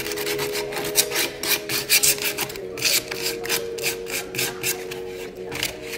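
Coarse 60–80 grit sandpaper rubbed by hand in quick back-and-forth strokes, about four a second, along the edge of a chalk-painted end table top, wearing through the paint to distress it.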